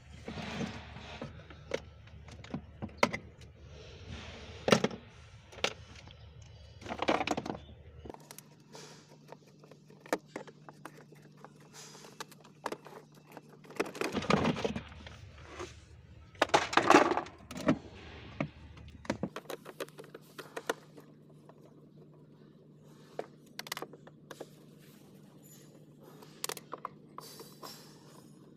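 Screwdriver and hands working on the hard plastic body of a kids' ride-on car: irregular clicks, scrapes and rattles as screws are turned out and plastic parts are handled, with a few louder scraping bursts.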